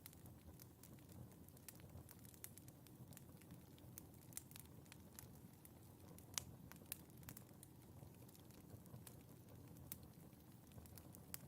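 Wood fire crackling in a fireplace: quiet, irregular small pops and snaps over a low steady rumble of the flames, with one sharper pop about halfway through.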